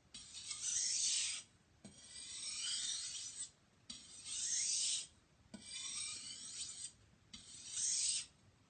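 Knife blade being drawn across a wet 1000-grit water stone in repeated sharpening strokes, each a gritty hiss lasting about a second and a half, five in all. Each stroke starts with a light click as the blade lands on the stone. These are the finishing strokes that clean the burr off the edge.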